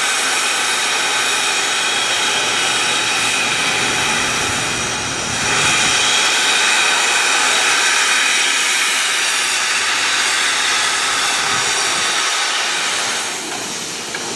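Durango & Silverton No. 481, a K-36 narrow-gauge steam locomotive, hissing loudly and steadily with venting steam. The hiss swells about five seconds in and eases near the end.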